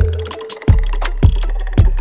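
Background music with a steady beat, a kick drum landing about every 0.6 seconds over a sustained bass note.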